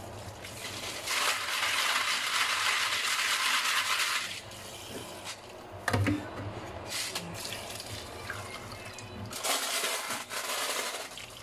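Running water splashing into a stainless-steel bowl of washed metal clarinet keys: a stretch of about three seconds, then a shorter one near the end. In between, the keys clink against the bowl and each other as they are rinsed.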